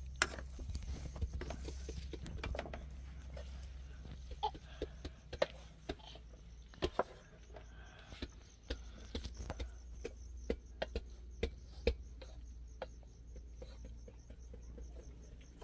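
Irregular light clicks and taps, a few louder knocks among them, over a low steady hum.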